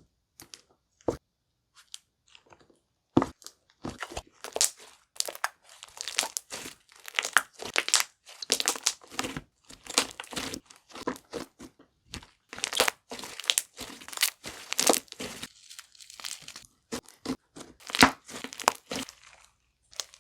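Tanooki Slimes' textured 'mango sticky rice' slime being squeezed and worked by hand, giving an irregular run of crackles and pops with a few louder snaps.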